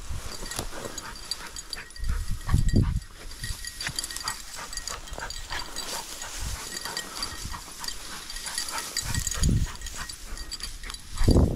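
Footsteps brushing and crunching through tall dry grass, with a steady rustle and a few heavy, dull low thumps.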